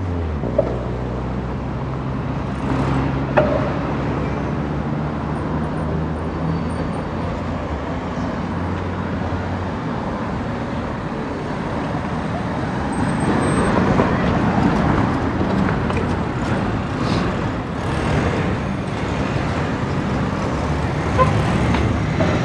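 City street traffic: a motor vehicle's engine runs close by with a steady low hum through the first half, then gives way to general traffic and road noise. Two short knocks come early on.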